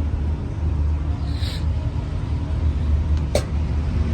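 Steady low engine rumble of a running vehicle, with a short hiss about one and a half seconds in and a sharp click a little past three seconds.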